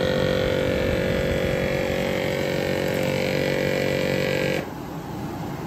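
Blower fan motors and electric vacuum pump of a Jaguar XJS's Delanair Mk3 climate control unit, running with a steady hum. The hum is shut off about four and a half seconds in, leaving a fainter noise.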